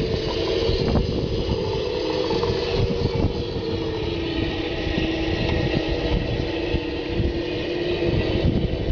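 A 1/4-scale radio-controlled King Tiger tank driving: a steady mid-pitched whine over a rough low rumble with irregular clatter.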